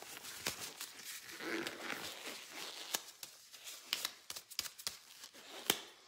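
Blue disposable gloves being pulled onto the hands: rustling and crinkling of the glove material, with a few sharp clicks and snaps.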